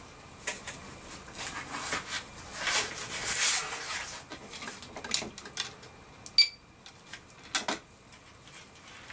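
Small clicks and rustling from electronic parts and wires being handled on a workbench, with one short, high ping about six seconds in.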